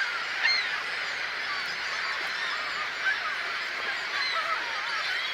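A large flock of birds calling densely, with many overlapping honking calls over a steady din.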